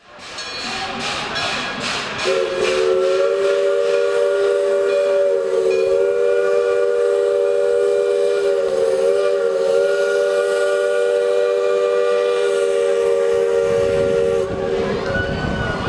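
Steam locomotive whistle blowing one long chord of several tones for about twelve seconds, wavering slightly twice, then cutting off suddenly near the end. Before the whistle starts there is a rapid rhythmic beat from the running engine.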